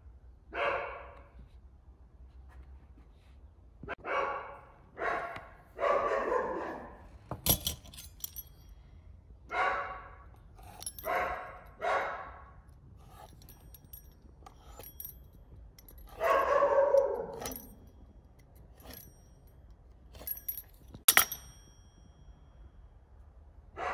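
A dog barking in single, spaced-out barks, about nine in all, with a longer bark about two-thirds of the way through. A few sharp clicks stand out, the loudest about seven and a half seconds in and again near the end.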